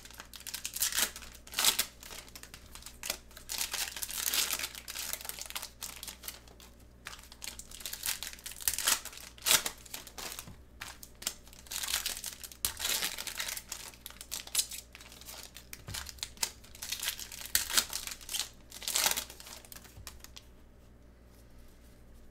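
Foil wrapper of a Prizm basketball card pack crinkling and tearing as gloved hands rip it open and work the cards out, in repeated irregular bursts of crackling.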